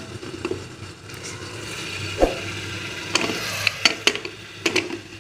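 Flat bean pods frying in oil inside a covered aluminium pressure cooker on a low gas flame, a steady sizzle muffled by the lid. Several sharp clicks and a knock come in the last three seconds.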